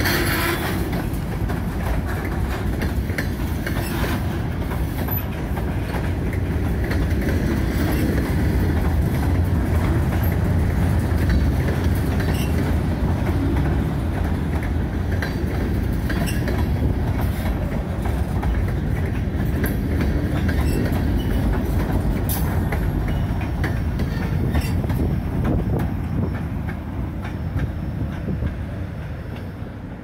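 Loaded freight train's covered hopper cars rolling past close by: a steady low rumble with wheels clicking over the rail joints. It fades near the end as the last car goes by.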